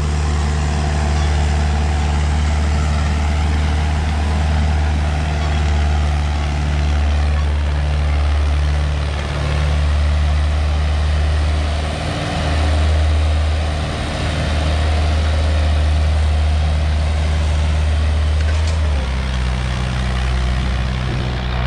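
1972 International Harvester B276 diesel tractor engine running steadily under load at full throttle while pulling a disc harrow, with the harrow's discs scraping through sandy soil. The engine note dips briefly about halfway and changes near the end.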